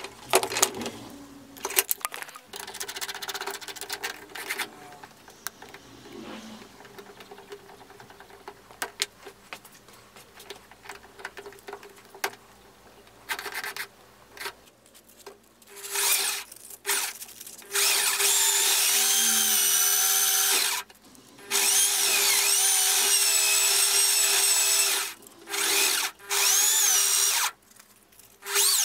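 A power drill clamped in a vise runs in several short bursts in the second half, spinning a wooden dowel that carries a steel ring cut from a ball bearing, each run starting and stopping abruptly with a steady high whine. Before that, small clicks and rustles of the drill, dowel and tape being handled.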